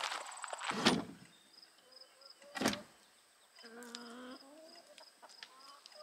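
Two footsteps crunching on gravel, then hens clucking and calling.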